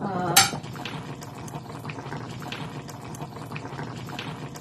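Chicken stew bubbling in a pot on the stove: a steady simmer with small popping bubbles. A brief voice sound and a sharp click right at the start.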